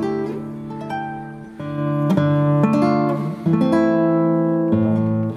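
Background music: an acoustic guitar plucked and strummed.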